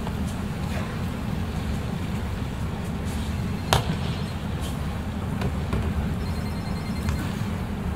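Low steady rumble of a large hall, with scattered sharp clicks and one louder slap a little before halfway: the thrown partner hitting the tatami during an aikido throw and pin.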